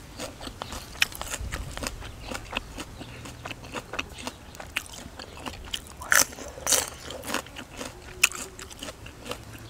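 A person chewing and crunching food, a close run of crisp crackles and clicks, with the loudest crunchy bites a little after six seconds and near seven seconds.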